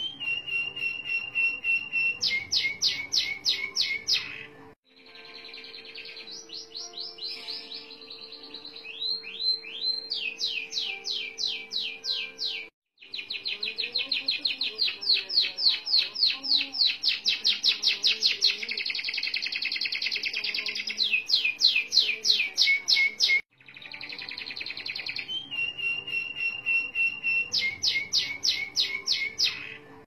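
Orange domestic canary singing long rolls: fast trills of rapid repeated whistled notes joined to held tones, run on for many seconds at a stretch. The song breaks off abruptly three times and starts again.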